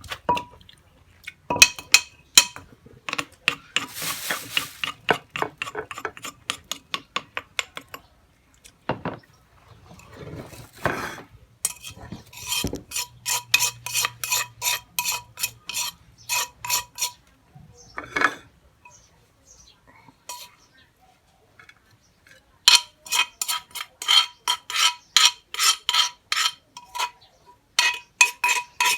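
Kitchen utensil striking and scraping in a bowl or mortar in steady runs of about three strikes a second, each strike with a short ringing tone, as the pounded hog plum salad is mixed; the runs stop briefly twice.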